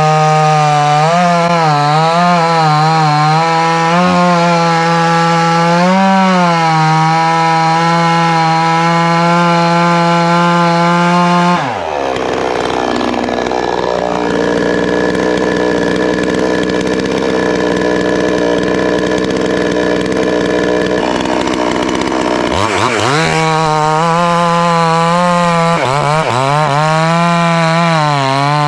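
Pinkway 63cc two-stroke chainsaw ripping a log along the grain at full throttle, its pitch wavering as the chain loads up in the cut. About twelve seconds in it drops abruptly to idle, then some ten seconds later it revs back up and cuts again.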